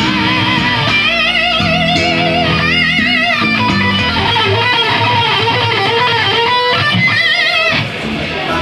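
Electric guitar and bass guitar played live on stage through amplifiers, loud. The guitar holds notes with a wide, wavering vibrato, and the playing drops back briefly near the end.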